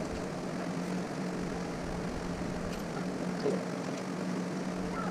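A steady mechanical hum with a droning whir, and a light clink about three and a half seconds in.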